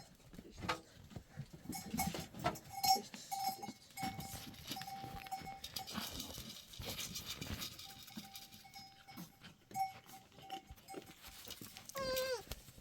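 Goats moving about with a bell ringing on and off among scattered knocks. Near the end, one goat bleats once with a falling call.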